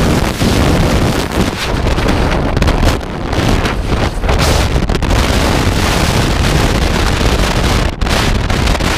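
Loud, steady rush of freefall wind buffeting a skydiver's camera microphone as the parachute deploys, with a brief dip near the end.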